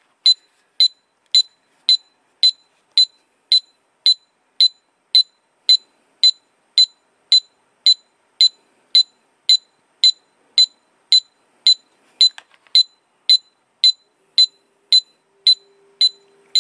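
CPR compression-pace circuit's small speaker giving a short high-pitched beep about 110 times a minute, the rhythm for chest compressions, each beep evenly spaced.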